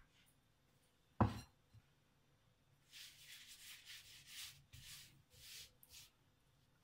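A bowl is set down with a single knock on a wooden pastry board about a second in. From about three seconds a hand rubs cornstarch across a thin sheet of baklava dough in a run of soft swishes.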